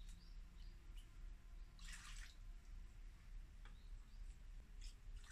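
Faint water drips and a brief small splash about two seconds in, as a little more water is added to a tub for soaking pots.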